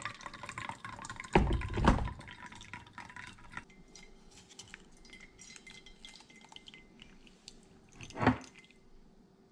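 Coffee dripping from a paper drip bag into a stainless steel tumbler, in small scattered ticks. Two loud knocks come about a second and a half in as the bag and cup are handled, and another near the end as the bag is lifted out.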